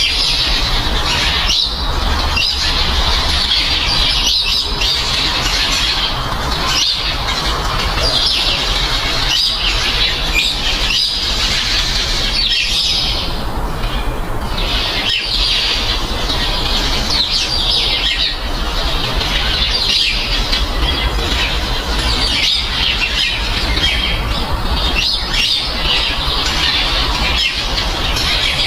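White doves flapping in flight amid a steady, dense chatter of high bird calls and squawks, over a constant low rumble.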